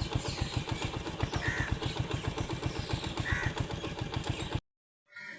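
Honda CD70's single-cylinder four-stroke engine idling with a steady, even putter, while a crow caws a few times. The engine sound cuts off suddenly near the end.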